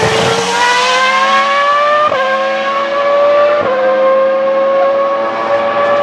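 Ferrari Formula One car's engine accelerating hard away from the camera, its note climbing through the gears, with quick upshifts about two seconds and three and a half seconds in.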